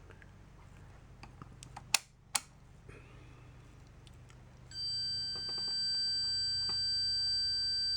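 Two sharp clicks about two seconds in, then, nearly five seconds in, a Fluke 37 multimeter's continuity beeper starts a steady high-pitched beep and holds it: the meter is reading continuity with the decade box at 0 ohms.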